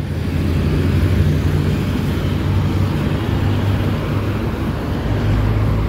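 Trucks driving past close by: a small cargo truck and then a tractor-trailer hauling a shipping container, with a steady low engine rumble and tyre noise on the road.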